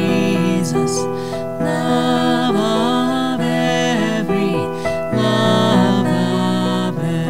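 Background music: a song with piano and a singing voice.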